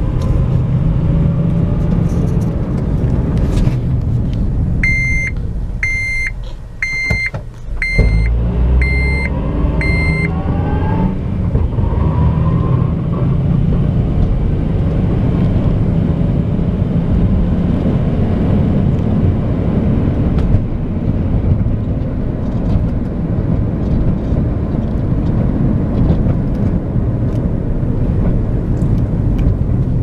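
Cabin sound of a 2005 Honda Element 4x4 on the move: the four-cylinder engine and the road make a steady rumble, and the engine tone rises as the car picks up speed. A dashboard chime beeps six times, about a second apart, in the first third.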